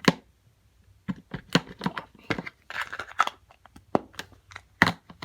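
Hands handling small plastic slime containers and cloud slime: a run of irregular sharp clicks and short crackles.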